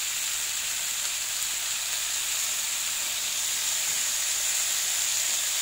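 Chilies, tomato and leunca berries frying in oil in a nonstick pan, a steady sizzle, with tauco (fermented soybean paste) just added.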